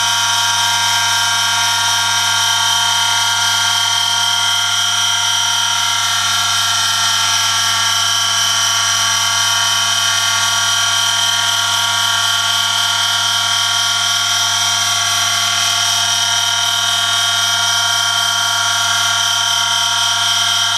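Electric motor of a friction-test rig running steadily, its shaft turning against a metal test sample pressed on it by a 1 kg lever load in engine oil: metal-on-metal friction under load. The motor's hum sits under a steady high-pitched whine that holds constant throughout.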